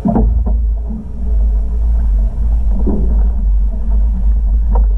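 Steady low rumble of a boat on its trailer being towed slowly up the slipway by a car.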